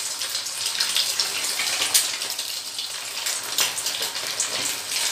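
Egg 65 balls deep-frying in hot oil in a stainless steel kadai on medium-to-high flame: a steady sizzle with scattered sharp crackles.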